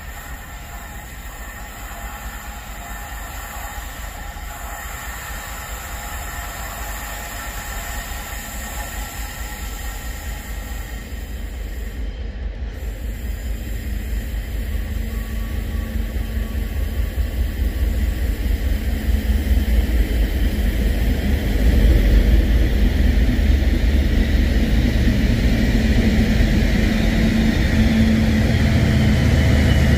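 Class 56 diesel locomotive, with a Ruston-Paxman 16-cylinder engine, approaching with a freight train of box wagons. The engine and wheel rumble grow steadily louder until it passes close near the end.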